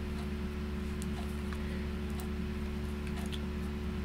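Steady low hum of room tone, with a few faint, brief clicks and ticks from handling.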